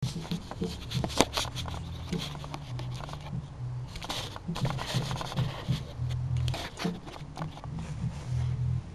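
Handling noise from a small video camera being moved and set in place: a run of scrapes, clicks and knocks, with an on-off low hum beneath.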